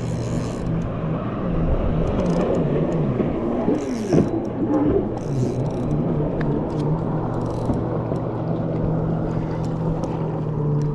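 Motorboat engine running nearby with a steady hum; its pitch wavers up and down around four seconds in, then holds steady.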